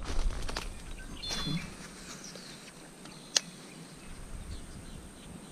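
Quiet outdoor ambience with a short bird chirp about a second in, a few sharp clicks at the start and one sharp click near the middle.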